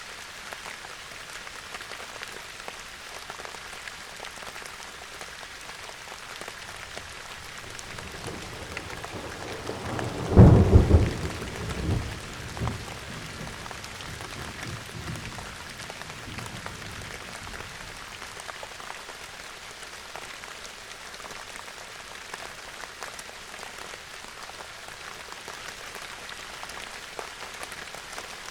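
Steady rain falling, with a roll of thunder that builds about a third of the way in, peaks in a loud clap, then rumbles on in a few weaker swells before fading.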